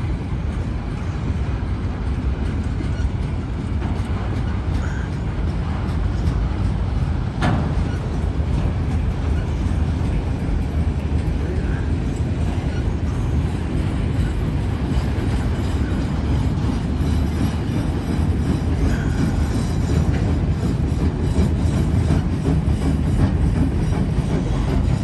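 Autorack freight cars rolling past: a steady rumble of steel wheels on the rails, with one brief sharp squeak about seven seconds in.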